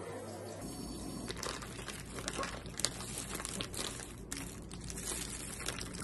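Thin plastic bag crinkling and crackling as hands gather and twist it closed, starting about half a second in.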